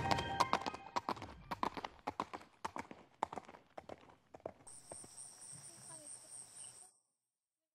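Horse hoofbeat sound effect from a logo sting: irregular hoof clops that fade away over about four seconds. A faint high whine follows near the end.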